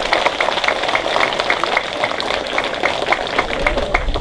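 Scattered applause from a small outdoor crowd: many separate hand claps at uneven spacing.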